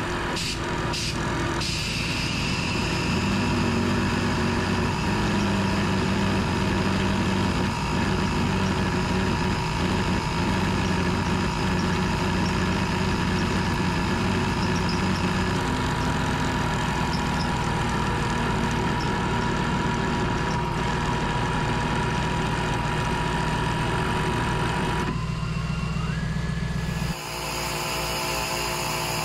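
ARB CKMAT12 twin 12-volt air compressor running against an open air line, with a coarse rattle that sounds like a marble mixer while it draws high current, a sign of its failing pump. About 27 seconds in, the sound changes abruptly to a smoother, even running as the current draw drops back within spec. The vehicle's engine idles underneath.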